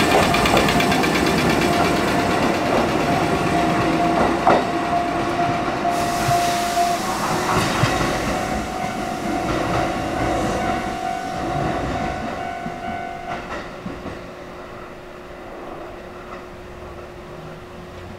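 Kotoden 1080 series electric train (ex-Keikyu 1000) pulling away: a steady whine over rumbling running gear, with a few sharp clacks of wheels over rail joints, fading steadily as the train draws off.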